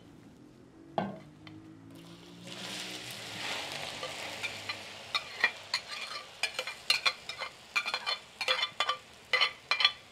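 Chopped nopales sizzling as they hit hot oil in a clay cazuela, the hiss starting a couple of seconds in. In the second half come a quick run of sharp clicks and knocks as a spatula scrapes the last pieces out of the bowl into the pan.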